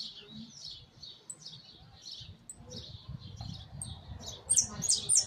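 Saffron finch (jilguero amarillo) chirping: a quick series of short, high notes, several a second, louder near the end.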